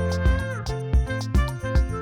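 Upbeat background music with a steady beat and pitched instrument notes, with a short downward slide about half a second in.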